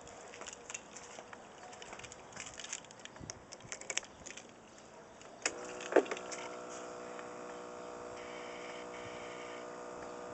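Light clicking and rustling, then just past halfway a sharp click as the scooter's ignition is switched on, followed by a steady electrical hum from its electrics with two short higher beeps near the end. The engine is not running.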